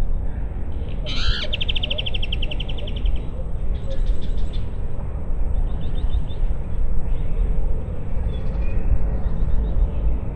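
Birds singing over a steady low rumble of wind: a sharp call about a second in, then a rapid trill lasting about two seconds, followed by shorter trills and chirps on and off.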